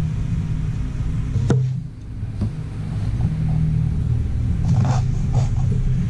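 A steady low rumble that drops away briefly about two seconds in, with a sharp click about one and a half seconds in and a few short clattering handling noises near the end.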